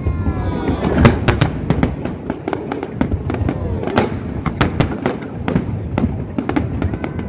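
Aerial firework shells bursting in quick, irregular succession: many sharp bangs and crackles over a low rumble.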